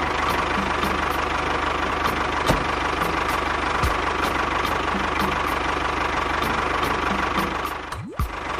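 Tractor engine running steadily, with a regular knock about three times a second over a steady whine. It dips briefly near the end and then carries on unchanged.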